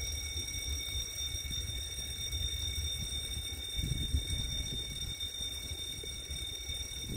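Level-crossing warning alarm sounding a steady high electronic tone over a low rumble.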